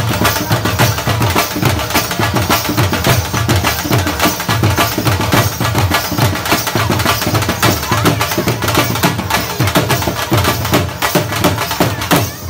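Dhols beating a fast, driving Qalandri dhamal rhythm: dense strokes with deep bass thumps that never let up.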